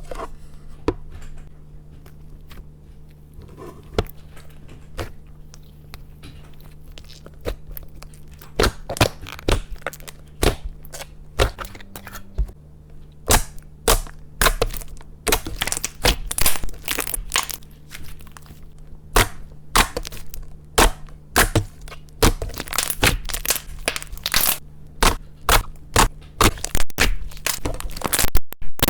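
Clay slime being pressed and worked by hand, giving sharp popping clicks. They come a few at a time at first and get faster and louder about halfway through. A faint steady low hum runs underneath.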